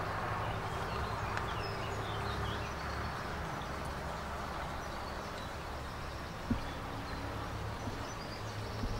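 Outdoor ambience: birds chirping over a steady low hum, with a single short tap about six and a half seconds in.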